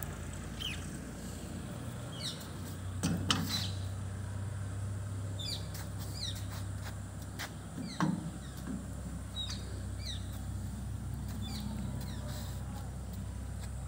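Small birds chirping in short, downward-sliding calls over a steady low hum, with two knocks about three and eight seconds in.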